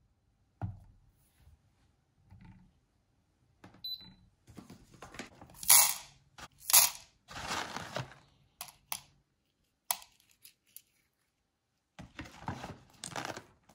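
Whole coffee beans poured into a plastic dosing cup on a scale, rattling and clicking in a run of short bursts, with a second handful going in near the end.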